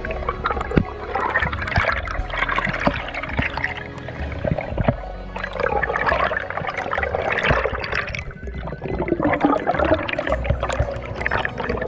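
Water bubbling and gurgling around an underwater camera, an uneven rushing wash with scattered sharp clicks.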